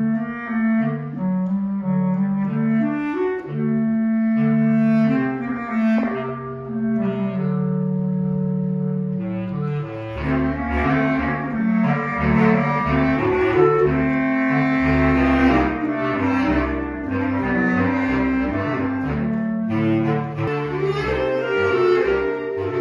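Instrumental ensemble music: held melodic lines over a low bass line, the texture growing fuller about ten seconds in.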